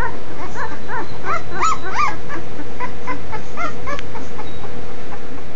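Newborn Cane Corso puppies, five days old, whimpering and squeaking: many short high cries that rise and fall, several a second from more than one pup, thinning out after about four seconds.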